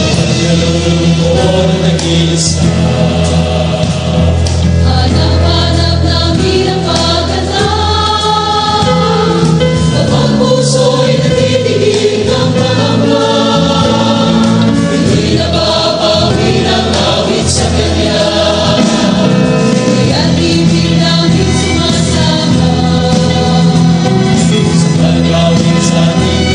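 Background Christian gospel song: a choir singing with instrumental backing.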